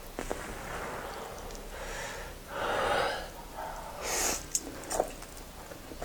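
A person eating noodles, with noisy slurps and breaths. The loudest slurp comes about two and a half seconds in, a short, sharp hissing intake follows about a second later, and there are a few small clicks near the end.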